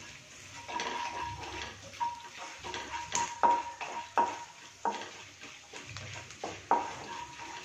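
Wooden spatula stirring and scraping roasted gram, garlic and curry leaves in oil in a nonstick kadai, knocking against the pan several times, over a light sizzle of the oil.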